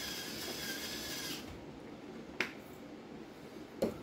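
Electric salt grinder whirring as it grinds salt, stopping about a second and a half in. Two sharp knocks follow, the second near the end.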